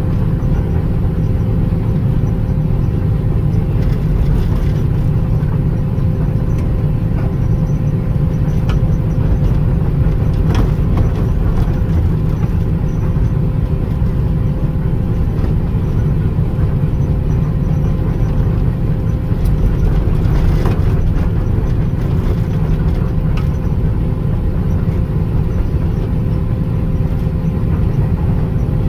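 John Deere 200LC (Hitachi EX200) excavator's diesel engine running steadily as the machine travels on its tracks, a constant low drone with a few faint clicks.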